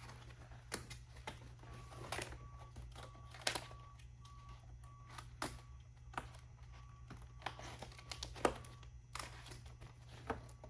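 Scattered light clicks and taps from handling, with a faint run of short, evenly spaced beeps through the middle.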